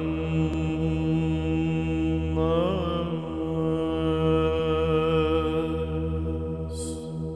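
Byzantine chant: a solo voice sings a slow, gliding melodic line over a steady held drone (the ison).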